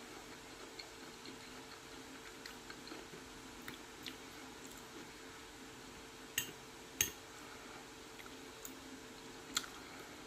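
Quiet chewing of pasta salad over a faint steady hum. A metal fork clinks sharply against the plate three times: twice a little past the middle, about half a second apart, and once near the end.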